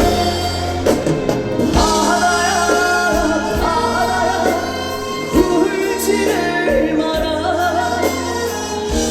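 Live trot song: a singer's voice with wavering held notes over a band accompaniment with low drum hits.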